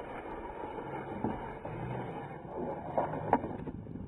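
Snowboard sliding along a terrain-park box, its base scraping over the box and then over packed snow, with a few sharp knocks about three seconds in.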